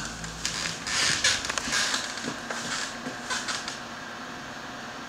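Rustling and a few light knocks as a plate and a glass of water are set down on a small wooden table, giving way to a steady hiss about four seconds in.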